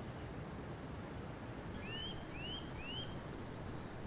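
Nature ambience of birdsong over a steady rushing background: one high bird call stepping down in pitch, then three short rising chirps about half a second apart.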